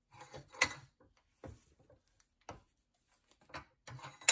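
Bench vise being cranked to press a needle bearing out of a starter motor's aluminium nose cap with a deep socket. Irregular metal clicks and knocks come from the vise and the parts, the loudest about half a second in and a sharp one near the end.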